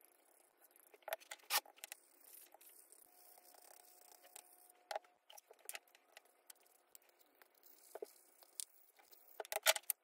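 Scattered light clicks and taps of small wooden pieces being handled, coming in small clusters with the sharpest run near the end. A faint steady hum sounds for a couple of seconds in the middle.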